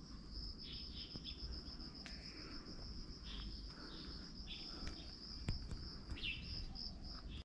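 Steady high-pitched insect trill, with short bird chirps breaking in every second or so and a couple of faint clicks.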